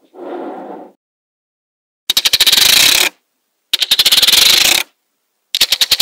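Small magnetic balls rubbing softly under the fingers, then snapping together in three bursts of rapid clicking as a sheet of balls is laid down onto another layer. Each burst lasts about a second and is loud.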